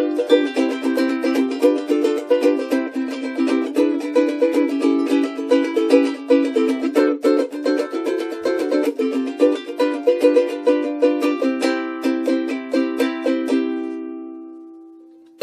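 Ohana SK-50 solid cedar-top, rosewood-body ukulele being played: a busy run of plucked notes and chords. Near the end the playing slows and a last chord rings out and fades.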